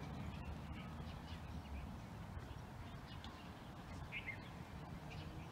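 Faint outdoor ambience: wind rumbling on the microphone, with a few faint bird chirps, the clearest about four seconds in.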